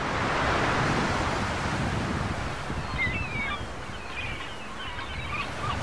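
Sea surf washing onto a sandy beach, a steady rushing noise with some wind, with a few faint high chirps from about three seconds in.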